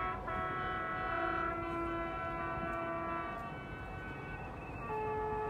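Boat horns in the harbour sounding long, overlapping blasts at several different pitches. One horn stops just after the start, others come in and hold for a second or two, and a new, lower horn starts near the end.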